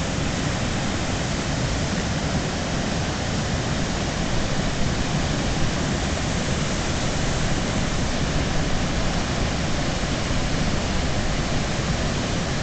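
Steady rush of whitewater pouring through a dam's spillway gates and churning over the rocks below.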